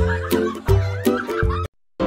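Upbeat background music with a steady bass beat, cutting off abruptly shortly before the end.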